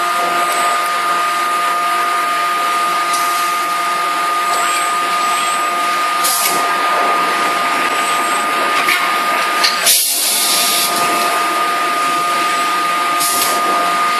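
Steady machine hum of forging-shop equipment carrying two steady tones, with short high hisses about every three seconds; the longest hiss comes about ten seconds in.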